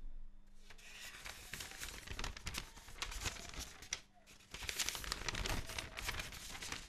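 Paper rustling and crinkling as it is handled, in two spells with a short lull about four seconds in.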